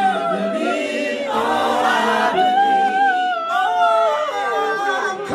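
A group of people singing together without accompaniment, several voices holding long notes and sliding between them.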